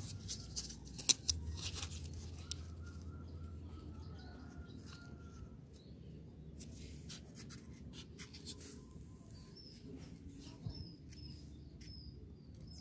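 Cardboard being handled and folded by hand: scratching, rubbing and clicking, with one sharp click about a second in. Birds chirp in the background, a run of short high chirps near the end.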